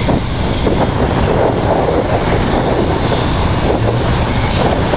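Wind rumbling on the microphone over a steady low engine drone.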